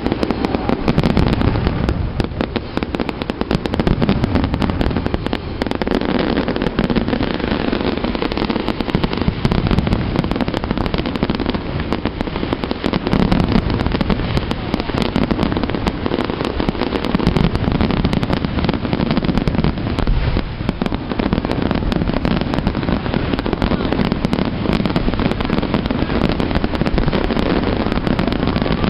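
Aerial firework shells bursting in a dense, continuous barrage of bangs and crackling, with no pause.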